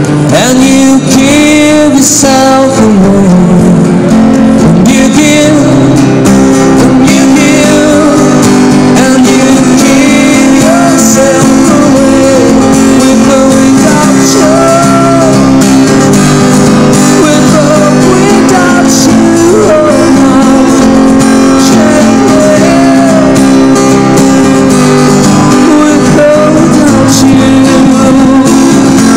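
A street busker singing over a strummed acoustic guitar, played loud through a microphone and small amplifier, with a steady chord accompaniment under a wavering sung melody.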